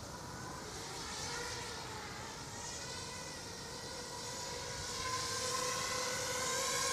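ZMR250 racing quadcopter's brushless motors and 5030 propellers whining in flight, a steady droning pitch that grows louder over the last couple of seconds.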